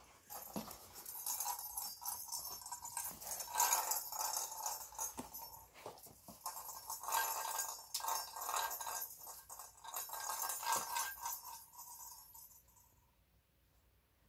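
Plastic tumbler cat toy rocking and wobbling as a kitten bats at it, the ball inside rattling and jingling with many small plastic clicks. The sound dies away near the end.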